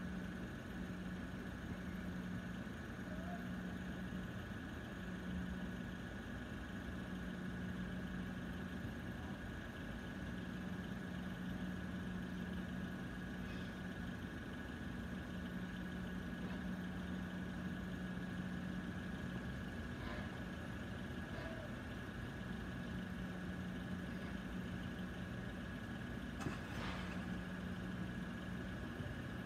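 Level crossing audible warning alarm sounding a steady high tone, over car engines idling in the queue at the lowered barriers.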